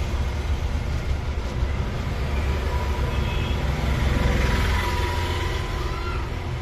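Hot-air rework gun blowing steadily, a constant rushing hiss over a low rumble, as it heats the solder on a phone's charging port to lift the old port off the board.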